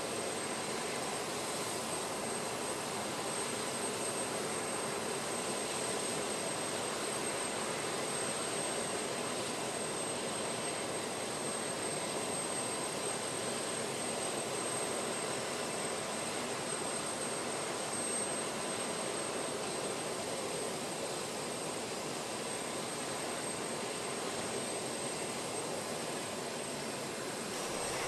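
Aircraft turbine engine running steadily, an even rushing noise with a thin high whine over it.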